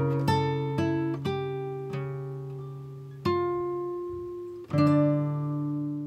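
Background music on a plucked string instrument: single notes and chords that each ring out and die away, with two fuller chords struck past the middle, fading out near the end.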